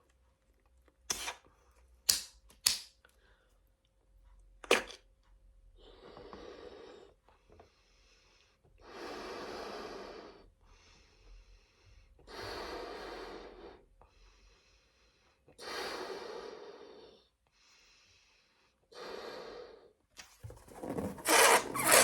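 A person blowing up a foil balloon by mouth: long breaths into it, with quieter in-breaths between, after a few sharp clicks. About a second before the end a much louder rushing noise starts.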